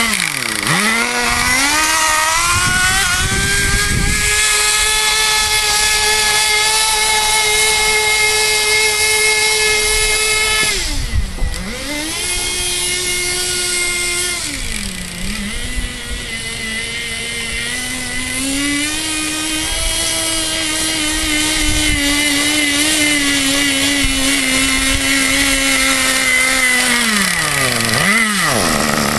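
Small two-stroke nitro glow engine of a Kyosho Blizzard RC snowcat running, its pitch dropping and climbing again as the throttle is eased off and opened, with long steady high-revving stretches between. The engine is not yet tuned and runs on 10% nitro fuel.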